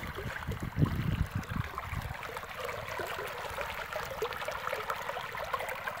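Shallow water of a small irrigation ditch running and trickling steadily over mud and stones, with a few low rumbles in the first couple of seconds.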